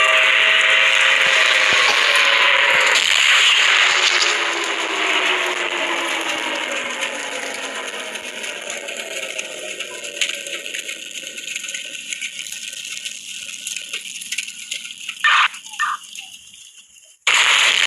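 A siren winding down: several tones slide down in pitch together and fade over about eight seconds beneath a hiss. Crackling follows, with two short bursts, then a brief dropout and a loud hiss near the end.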